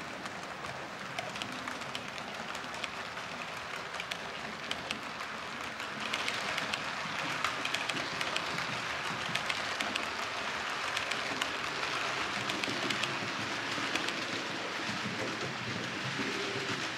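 H0-scale model passenger train running on the layout's track: a steady rattle of fine rapid clicks from the coaches' wheels on the rails, growing louder about six seconds in as the coaches pass close by.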